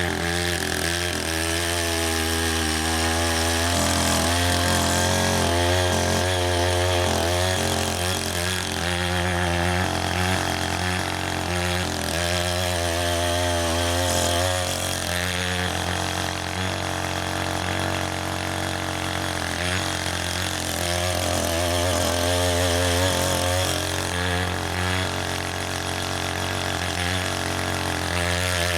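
Small-engine rotary tiller running steadily under load, its pitch wavering as the tines churn soil mixed with water into mud.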